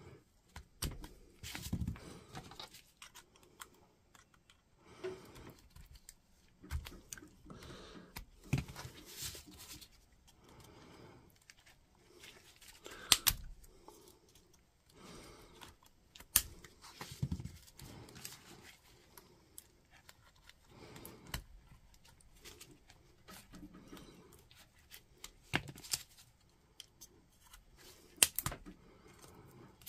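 Flush cutters snipping through the nickel connecting strips of a lithium-ion battery pack to free the faulty cells: irregular sharp snaps, a few much louder than the rest, amid rustling and handling of the plastic cell holder.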